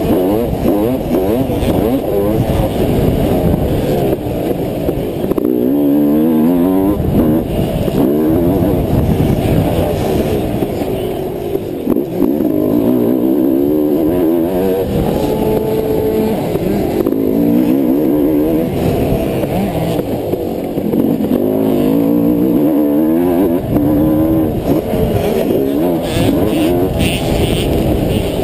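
Two-stroke motocross bike engine heard close up from the bike itself, revving hard and dropping off again and again as the rider accelerates, shifts and backs off around the dirt track.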